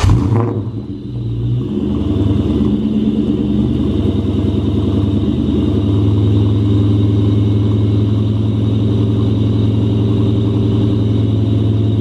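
2003–04 Ford Mustang SVT Cobra's supercharged 4.6-litre DOHC V8, just fired up and idling through its twin exhausts. It dips briefly about a second in, then holds a steady idle. It is running normally with its fuel pressure restored now that the blown-off fuel feed line is reconnected.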